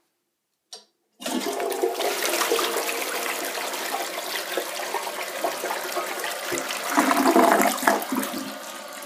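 A 2006 Crane Plumbing Atlas toilet flushing. A brief click comes first, then water rushes into the bowl about a second in, with a louder surge near the end before it drops to a quieter, steady rush.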